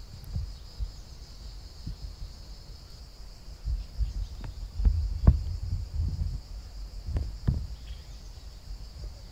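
Steady high-pitched drone of insects calling. Irregular low thumps and a few short knocks come through it, loudest around the middle.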